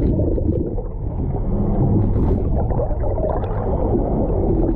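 Muffled underwater rumble and gurgling of water moving around a camera housing held below the surface, dull and low with the highs cut off.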